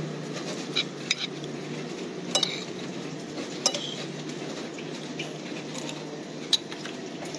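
Metal spoon clinking and scraping against a plate of rice while eating: several sharp, short clinks, the loudest near the end, over a steady low background noise.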